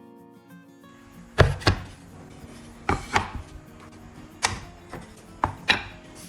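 Four pairs of sharp knocks, double blows about a second and a half apart, over background music.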